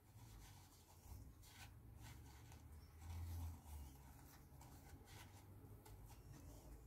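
Near silence with faint, gritty rustling of granulated sugar as a syrup-soaked ring biscuit is turned and pressed in it by hand, and a brief low rumble about three seconds in.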